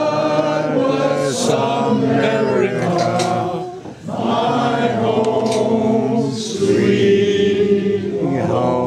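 A roomful of people singing together without accompaniment, holding long notes, with a brief pause for breath about four seconds in.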